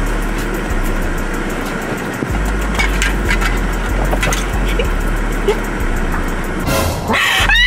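Steady low rumble and hiss of a running car heard inside the cabin, with faint knocks of someone shifting about on the seats. Near the end a high-pitched voice breaks in.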